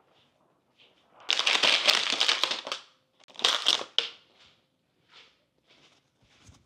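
A thin plastic colour gel sheet crinkling as it is handled and fitted over a studio light. There are two loud stretches, one from about a second and a half in and another around three and a half seconds, then a few softer rustles.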